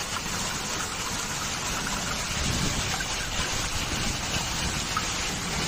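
Heavy rain mixed with hail pelting down in a steady dense hiss, with scattered small ticks of hailstones striking.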